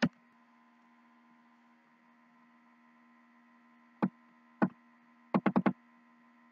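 Short sharp clicks over a faint steady electrical hum: one right at the start, two single ones about half a second apart about four seconds in, then four in quick succession.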